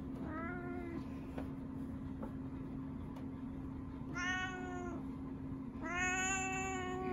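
Brown tabby cat meowing three times: a short faint meow at the start, then two louder, drawn-out meows about four and six seconds in, the last the longest.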